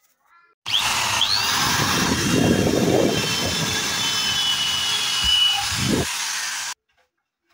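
Electric hand drill boring a hole into a white laminated cabinet panel. It starts abruptly under a second in and runs with a steady high whine for about six seconds, with heavier grinding as the bit bites, then stops suddenly.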